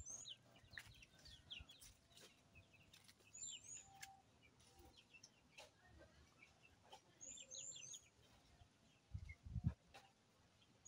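Faint bird chirps: a short phrase of a couple of high notes and a quick run of lower ones, repeated about every three and a half seconds. A few soft low thumps come near the end.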